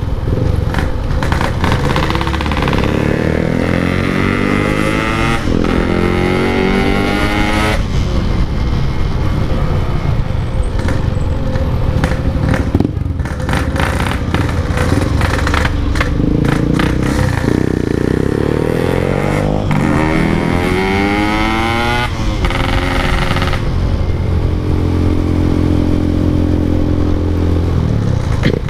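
Two-stroke Yamaha RX-King motorcycle engine with a 'packing power' exhaust, pulling through the gears: the pitch climbs several times and drops back at each gear change, then holds steadier while cruising near the end.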